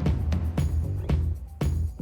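Background music with a steady beat: punchy low bass drum hits about twice a second with a sustained bass line.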